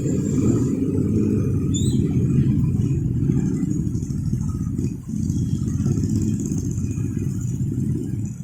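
Passenger train passing over a level crossing: a loud, steady low rumble with a brief dip about five seconds in.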